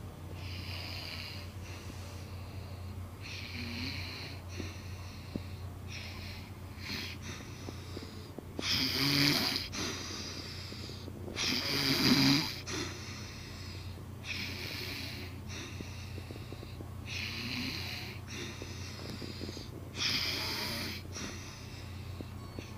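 A man snoring in his sleep, a snore or wheezing breath about every two seconds, with two much louder, rattling snores about nine and twelve seconds in. A steady low hum runs underneath.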